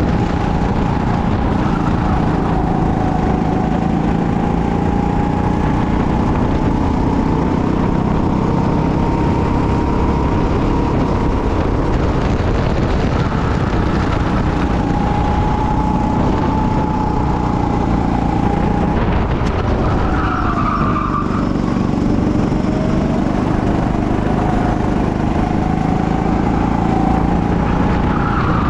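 Go-kart engine running hard on the track, its pitch rising and falling with the revs; it drops about twenty seconds in as the kart slows, then climbs again.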